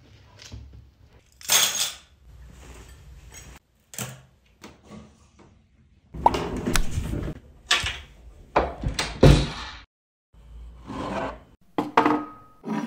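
A run of short household handling sounds, clunks, knocks and rustles, in about eight separate bursts with brief silent breaks between them.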